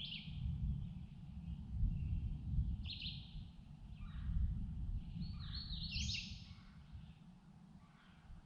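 Wild songbirds chirping in short separate phrases, with the loudest burst of calls about six seconds in. Under them runs a steady, uneven low rumble.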